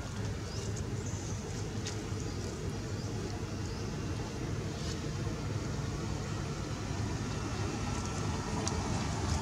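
Steady low rumble of motor traffic, with a few faint ticks and clicks.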